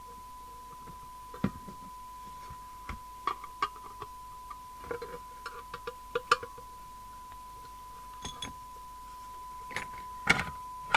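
A steady single-pitch test tone from the CB radio's speaker, the receiver still fed by the signal generator, with scattered clicks and taps of a screwdriver and small parts as the set is reassembled, the loudest taps about six and ten seconds in.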